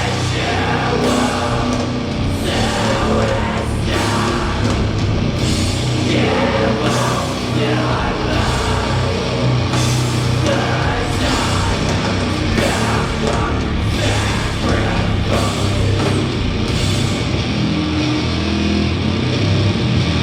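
Doom metal band playing live: loud, heavily distorted guitars and bass over drums.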